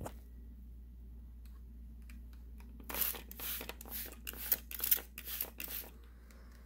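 A hand-held trigger spray bottle misting the plate of vegetables and greens: several quick sprays, one after another, starting about three seconds in and lasting about three seconds.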